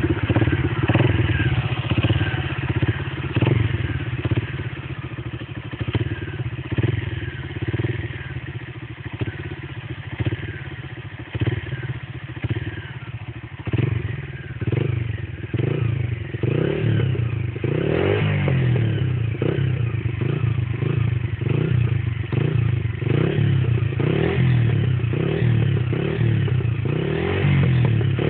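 Honda CG Fan motorcycle's single-cylinder four-stroke engine running through a loud aftermarket rumble exhaust, idling with a deep, uneven burble. From about halfway the note swells in short regular pulses, roughly once a second.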